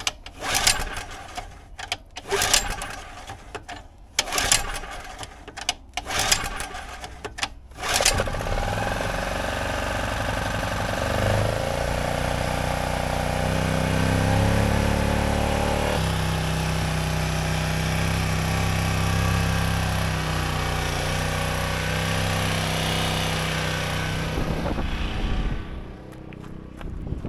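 Champion 1200-watt open-frame generator (model 40048) being pull-started: about five pulls of the recoil starter, each a loud burst, then the engine catches about eight seconds in. Its speed climbs for several seconds before settling into a steady run. It starts after sitting over a year on old fuel, once the choke is set the right way. The sound drops sharply near the end.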